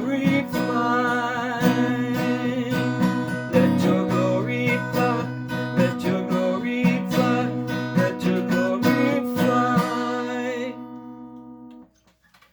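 Closing bars of a worship song: strummed acoustic guitar under a held, wavering sung note, ending on a sustained chord that rings out and fades away near the end.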